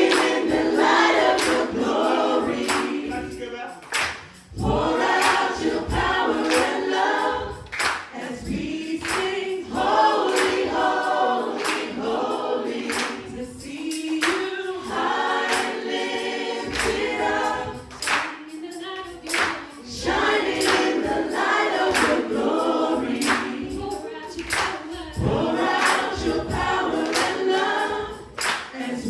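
A choir singing a worship song with a steady beat of sharp strikes underneath.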